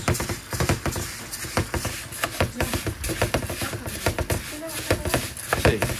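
Rice frying in hot oil in a pan, sizzling with dense, irregular crackles. It is at the browning stage, nearly ready for the tomato to go in.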